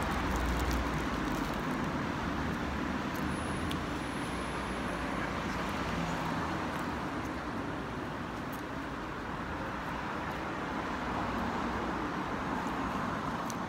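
Steady city street traffic noise: road vehicles running and passing.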